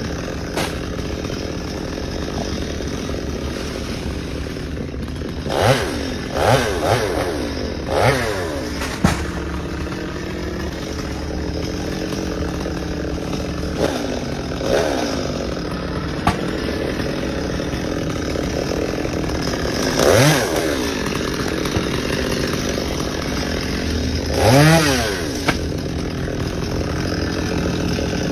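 Chainsaw engine running at a steady idle, its throttle briefly revved about six times, each rev a quick rise and fall in pitch.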